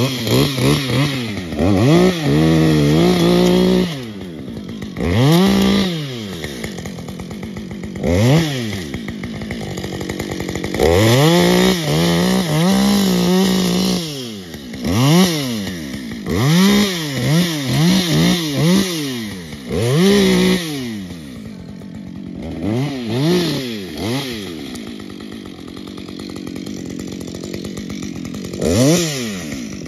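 Husqvarna two-stroke chainsaw revved up and down again and again, held at full throttle for a few seconds at a time, dropping back to idle in between. For most of the last several seconds it idles, with one more quick rev near the end.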